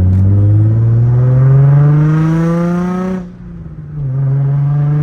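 Nissan 350Z's 3.5-litre V6 accelerating hard with a manual gearbox: the engine note climbs steadily for about three seconds, dips at an upshift, then climbs again in the next gear.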